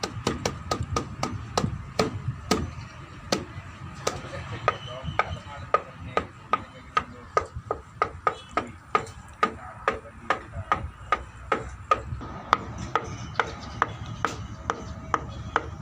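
A hand slapping bamboo in a quick, uneven rhythm of roughly three to four hits a second. Each strike is a sharp knock with a short hollow ring.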